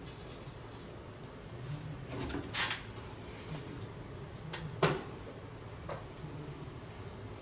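A few sudden knocks and clicks over a low steady room hum: a louder knock about two and a half seconds in, two sharp clicks close together near five seconds, and a faint one just after.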